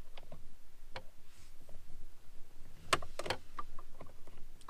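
Scattered light clicks and taps of a screwdriver and plastic dash parts being handled, the loudest two close together about three seconds in.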